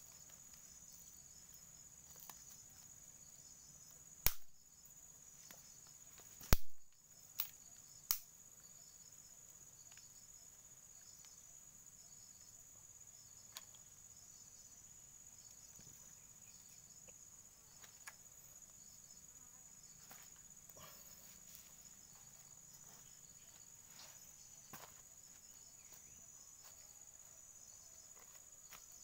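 Steady high-pitched chirring of insects, crickets or cicadas, with a few sharp knocks in the first eight seconds, the loudest about four and six and a half seconds in.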